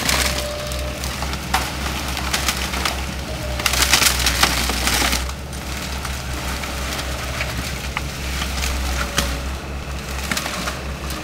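Wooden building wreckage cracking and splintering as a Caterpillar tracked hydraulic excavator crushes and drags it with its bucket, over the steady low running of the machine's diesel engine. The loudest burst of crunching and splintering comes about four seconds in, with scattered cracks and knocks before and after.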